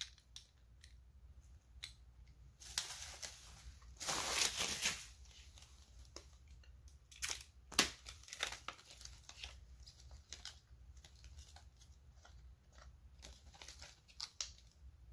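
Plastic wrapping crinkling in short spells, the longest about four seconds in, among scattered light clicks and taps of coins and plastic capsules being handled.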